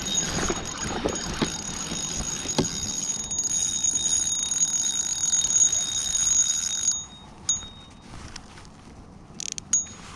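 Spinning reel being cranked while fighting a bass, giving a steady high whine, with a rain jacket rustling against the chest camera. The reeling stops about seven seconds in, leaving only a few light clicks.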